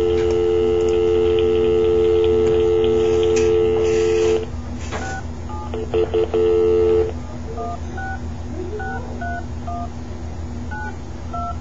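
Telephone dial tone holding steady for about four and a half seconds, then touch-tone (DTMF) keypad beeps as a number is dialled: a string of about ten short two-note beeps at changing pitches. A low steady hum runs under it.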